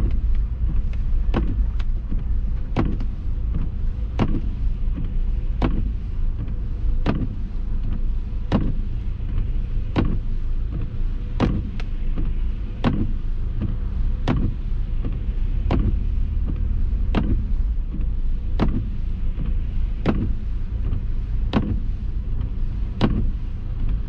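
Steady low road and engine rumble inside the cabin of a 2005 Subaru Forester driving on snow, with the windshield wipers knocking at a regular beat, about one knock every second and a half.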